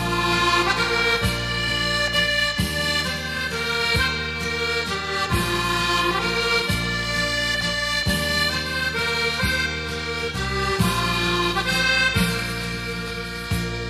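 Background instrumental music: an accordion-like tune of sustained chords over a bass line that changes step by step.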